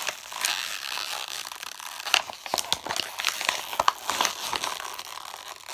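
Clear plastic toy packaging crinkling and crackling as it is squeezed, twisted and pulled open by hand, with a continual run of small sharp crackles.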